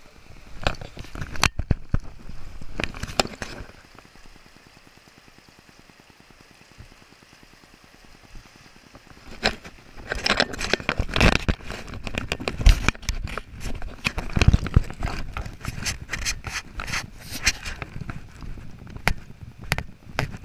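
Irregular crunching and scraping of footsteps on a rocky, gravelly trail, with sharp clicks, in two busy stretches separated by a quieter few seconds.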